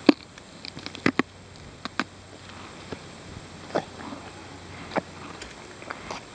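A horse munching a carrot close to the microphone: irregular sharp crunches, the loudest at the start and two close together about a second in, then fewer and further apart.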